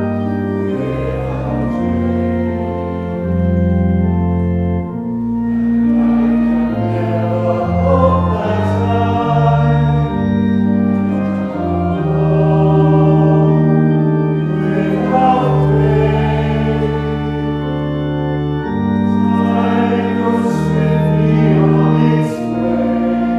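Congregation singing a hymn to organ accompaniment. The organ's held chords change every second or two under the voices. The words sung include "without a cloud, without rain", "can travel on without pain" and "time goes swiftly on its way".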